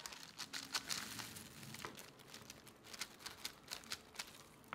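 A knife cutting through a cream-layered sponge cake resting on baking paper: irregular crinkling and crackling with many small ticks.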